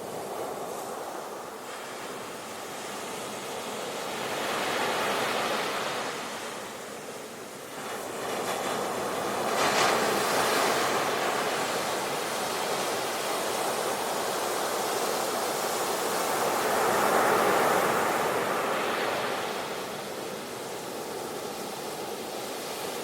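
Ocean waves breaking and washing on the shore, the surf rising and falling in several surges of hiss.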